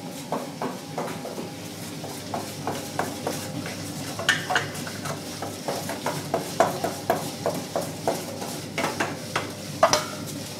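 A spoon scraping and clinking against a ceramic plate and a steel bowl in irregular strokes, as foamed detergent mass is pushed into a small shearing machine. The machine's motor runs steadily underneath.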